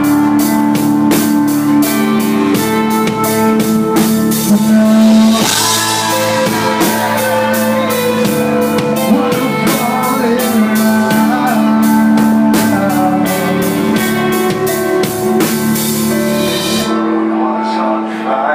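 Live band playing: keyboard and guitar holding steady chords over a drum beat. The music stops about a second and a half before the end.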